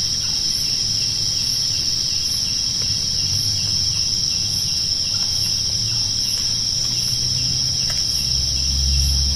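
Insects chirring in a steady, loud, high-pitched drone with a faint regular pulsing. A low rumble swells near the end.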